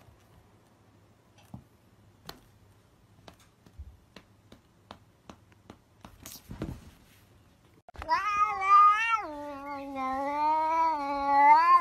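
A cat yowling: one long, loud, wavering call lasting nearly four seconds, starting about two-thirds of the way in and dipping in pitch a second after it begins. Before it there are only faint scattered ticks.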